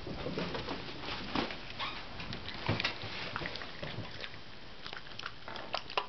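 Small dog eating mixed greens from a bowl: irregular soft chewing and clicks of teeth on the food and bowl.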